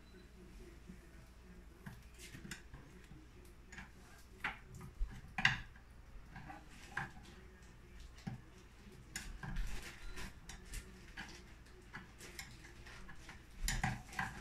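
Irregular light metallic clicks and taps of a small screwdriver knocking against the wooden leg of a bar stool, the loudest about five and a half seconds in.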